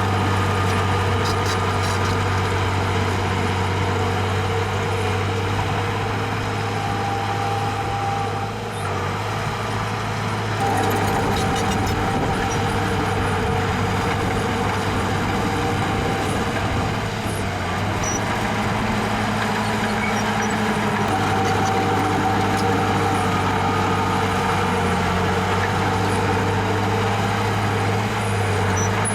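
Diesel engine of heavy earthmoving machinery running steadily, with a brief dip in level twice.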